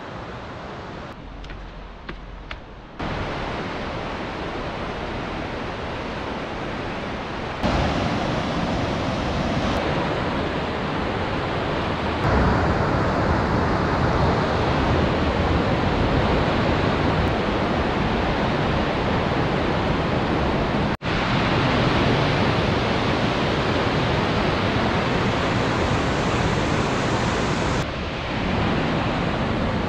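Rushing white water of the Soča river pouring through a narrow rock gorge, a steady hiss of water. Its loudness jumps up or down suddenly several times.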